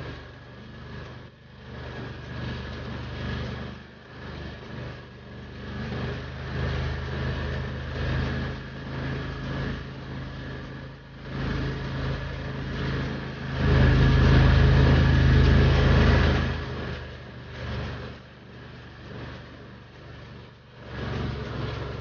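Argo amphibious ATV engine running steadily, swelling louder for about three seconds about two-thirds of the way through.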